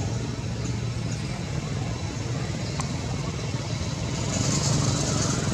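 Steady low rumble of motor traffic, swelling slightly about four seconds in.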